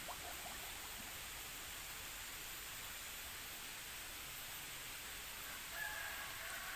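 Steady faint hiss of outdoor background noise, with a faint drawn-out call near the end.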